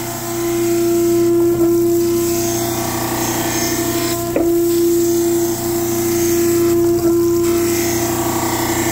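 Surface grinder wheel grinding the rough cast face of a prism under flood coolant: a steady hum with a hiss of wheel and coolant, and a brief knock about every two and a half seconds.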